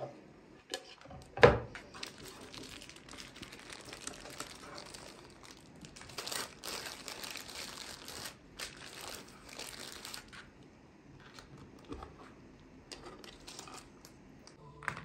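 Baking paper crinkling and rustling as a paper-wrapped roll is handled and shifted, busiest through the middle and quieter near the end, with one sharp knock about a second and a half in.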